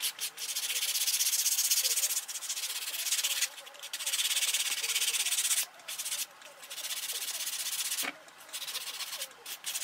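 Hand sanding of a small part against a sanding block: the dry hiss of abrasive in several long strokes of a second or more each, with short pauses between and shorter strokes near the end.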